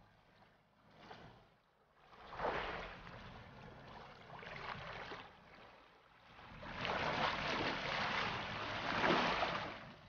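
Humpback whales surfacing: whooshing rushes of water and spray, one surge about two and a half seconds in and a longer, louder one from about seven seconds until just before the end.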